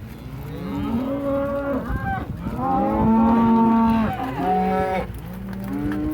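Cattle mooing in a herd, several long calls overlapping one another, the loudest about three seconds in.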